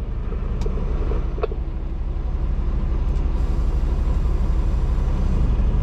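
Heavy-haul semi truck's diesel engine running with a steady low rumble.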